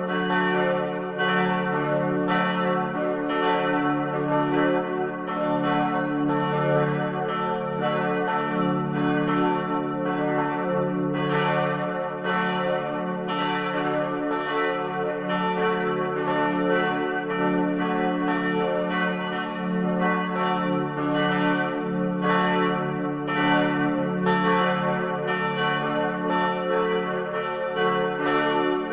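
Church bells ringing: a steady, even run of strikes, a little more than one a second, each one ringing on into the next so the tones overlap without a break.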